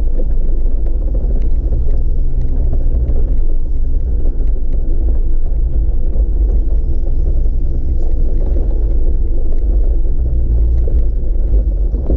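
Jeep engine pulling at low revs up a loose, rocky trail, a steady low rumble with a few faint clicks of stones under the tyres.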